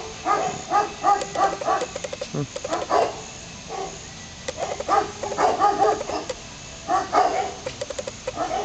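A dog barking over and over in quick runs of short barks, with brief pauses between the runs.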